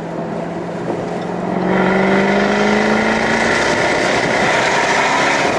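Jaguar F-Type Project 7's supercharged V8 accelerating hard to overtake a truck. The engine note rises in pitch and grows louder about a second and a half in, then holds steady under road and wind noise.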